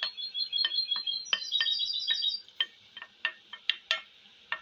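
Thick homemade mandarin-and-ginger syrup boiling in a pot, its bubbles popping in an irregular string of sharp pops. A rapid run of short, high chirping notes at a couple of pitches sounds over it during the first half.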